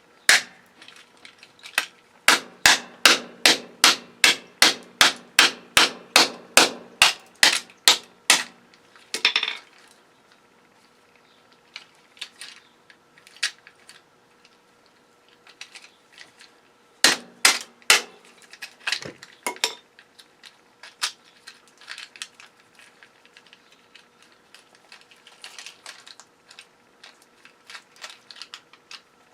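Hammer striking a circuit breaker to break it apart: a fast run of sharp blows, about three a second, for several seconds, then scattered lighter knocks and taps, with a short cluster of blows near the middle.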